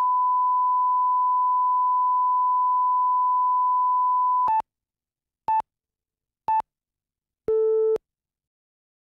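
Broadcast tape line-up: a steady reference test tone under colour bars, stopping about four and a half seconds in. Then three short beeps a second apart and a longer, lower final beep: the countdown pips that lead into the programme.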